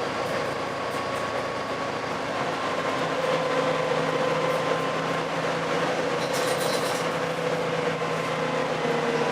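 Volvo B7TL bus's six-cylinder diesel and drivetrain running with a steady whine over the engine's hum; a deeper drone joins about three seconds in as it grows a little louder, and the whine eases slightly lower near the end. This is the unusual engine noise the bus makes.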